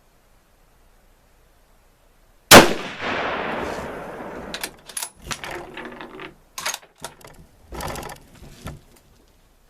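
A single shot from a Marlin XS7 bolt-action rifle in 7mm-08, about two and a half seconds in, with a long echoing decay. It is followed by several bursts of metallic clicks and clacks, typical of the bolt being worked to eject the spent case and chamber the next round.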